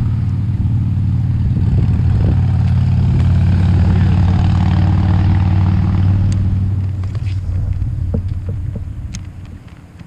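A low engine drone that swells, holds steady and fades away over the last couple of seconds, like a motor passing by.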